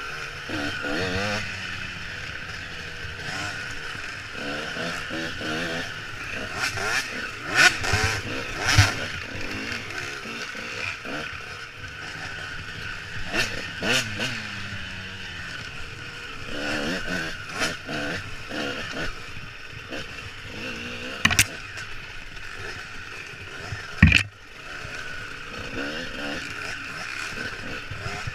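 Dirt bike engine revving up and down as it is ridden along a rough trail, heard from the rider's helmet. Several sharp knocks and clatters break through the engine sound, the loudest near the end.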